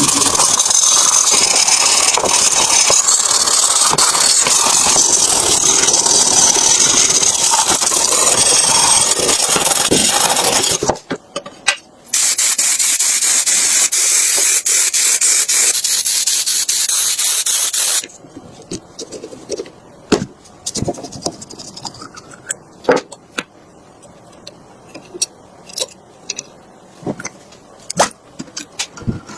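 Loud spraying hiss for about ten seconds. It breaks off briefly, sprays again for about six seconds, then gives way to scattered light clicks and taps.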